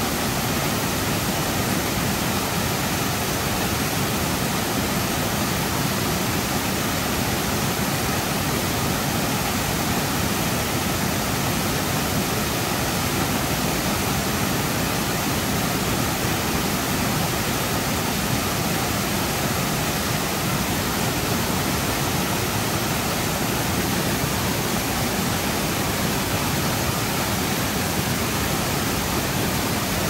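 Waterfall: water pouring over rock ledges into a pool, a steady, even rush.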